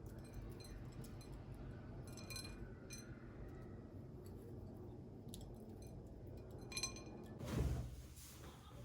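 Light clinks of dishware, each ringing briefly, about two seconds in and again near seven seconds, over a low steady hum; a soft thud follows near the end.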